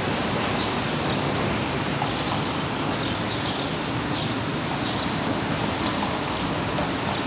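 Double-stack intermodal freight cars rolling steadily over an elevated railway bridge, making a constant rumble and rushing noise. Short, high bird chirps come and go on top of it.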